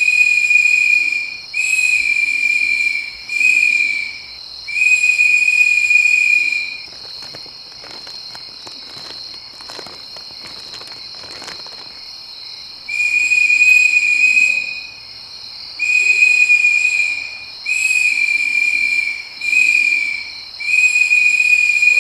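Insect chorus: a steady high whine under repeated long trills at one even pitch, each lasting one to two seconds. A few seconds of faint clicking without trills come in the middle.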